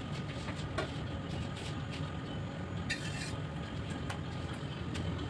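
Light clicks and clinks of cake-decorating utensils over a steady low hum.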